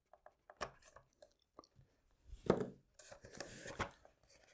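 Quiet handling sounds of a spar being pressed into a foam model wing's channel: scattered light clicks and creaks, a louder knock about halfway through, then about a second of hands rubbing along the foam.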